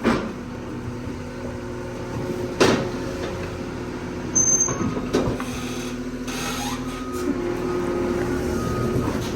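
Semi truck's engine running, heard from inside the cab, with three sharp knocks or clicks along the way.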